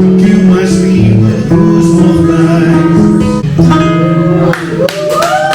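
Live music led by a guitar, held notes changing every half second or so, growing quieter about four and a half seconds in.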